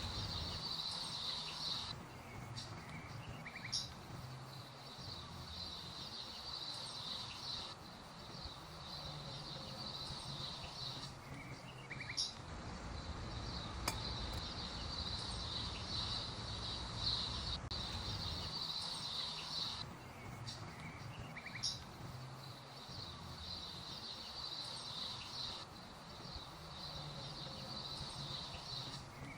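High-pitched brake squeal from a 2012 Ford F-150, a hissing whine that drops out briefly every several seconds and then comes back, over a low hum. A few short clicks fall in the gaps.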